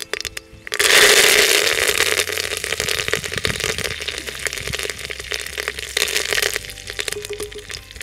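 Hot oil in a clay pot sizzling and crackling loudly as fresh green leaves are dropped onto frying dried red chillies about a second in. The spitting is strongest at first and slowly eases off over the next few seconds.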